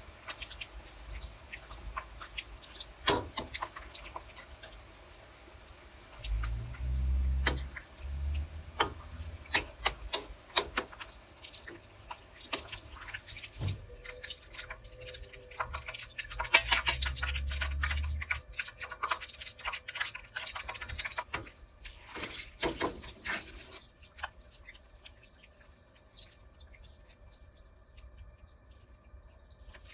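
Scattered clicks and knocks of hands working with kitchen utensils and a cutting board, with two short spells of low thudding handling noise.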